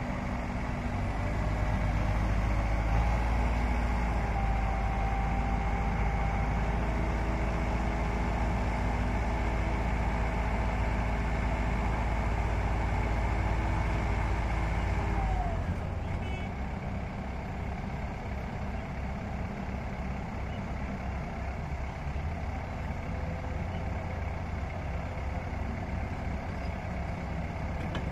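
A 95-ton mobile crane's diesel engine running with raised revs and a thin hydraulic whine while it hoists a load. About halfway through, the revs drop and the whine falls away, leaving a lower, pulsing idle.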